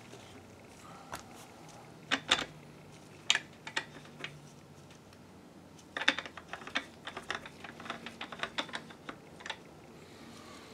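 Flexible metal gooseneck arms of the microscope's LED lamps being bent upward, giving sharp clicks: a few separate ones, then a quick run of many in the second half.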